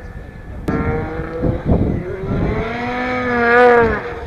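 2010 Ski-Doo Summit 800 snowmobile's two-stroke twin engine revving under throttle. It comes in sharply about a second in, climbs slowly in pitch and drops off near the end.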